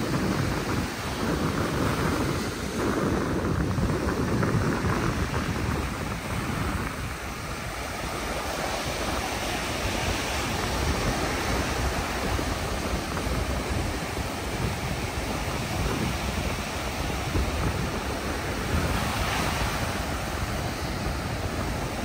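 Small ocean waves breaking and washing up a sandy beach, a steady rush of surf that swells and eases, with wind rumbling on the microphone.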